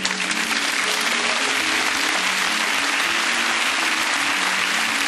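Audience applause, breaking out suddenly and holding steady, with background music underneath.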